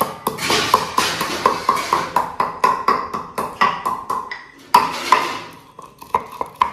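Wooden pestle pounding black peppercorns in a wooden mortar: rapid hollow knocks, about four to five a second, with a short break about four seconds in.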